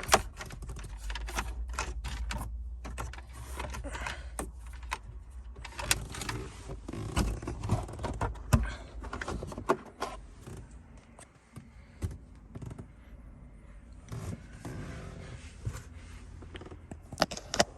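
Irregular clicks, taps and rustling from hands working plastic dashboard trim and a charging cable, with a few sharper knocks.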